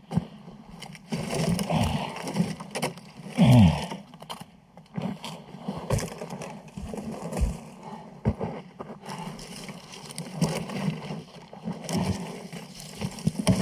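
Dry dead tree branches being dragged, cracked and tossed aside, with scraping and crunching on a loose gravel track. A short grunt of effort about three and a half seconds in.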